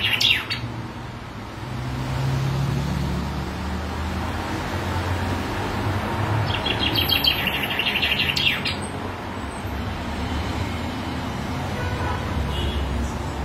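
Caged common chaffinch singing: the tail of one song right at the start, then one full song about halfway through, a fast run of repeated notes lasting about two seconds. A steady low rumble runs underneath.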